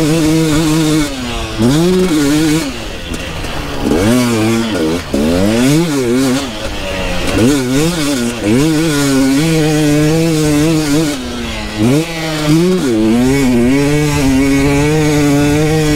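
Two-stroke KTM enduro dirt bike engine being ridden hard. It holds high revs, and several times the pitch drops sharply and climbs again as the throttle is rolled off and back on.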